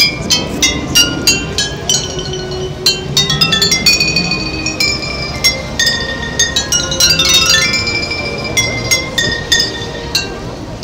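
Tuned glass bottles in a rack, struck one after another to play a tune: a steady melody of short, ringing glass notes at changing pitches, with a quick flurry of notes about seven seconds in.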